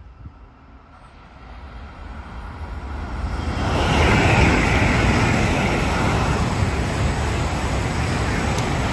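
Two coupled Eurostar Class 374 (Siemens Velaro e320) high-speed trains running past at speed without stopping. The rush of wheel and air noise builds over about four seconds, then holds steady and loud as the train goes by.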